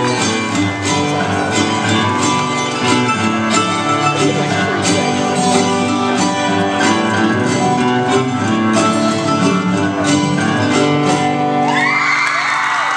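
Recorded show music, a song with guitar, playing steadily. Near the end it gives way to a crowd starting to cheer and whoop as the routine finishes.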